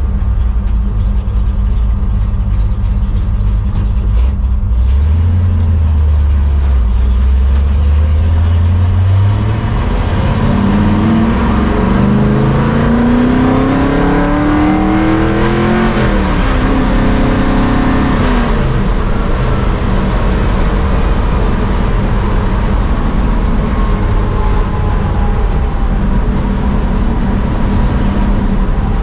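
1955 Chevrolet Bel Air's engine and exhaust heard from inside the cabin, pulling away from a stop. It runs low and steady at first, then accelerates with its pitch climbing, drops back twice around the middle, and settles into a steady cruise.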